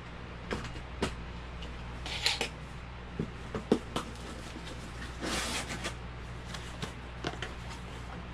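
Cardboard shipping box being opened and handled: scattered taps and knocks, with short scraping rustles of the flaps and a longer one about five seconds in, over a steady low hum.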